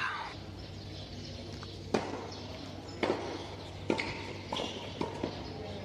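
Tennis rally on a hard court: a ball struck by rackets and bouncing, heard as about half a dozen sharp pops roughly a second apart, starting about two seconds in.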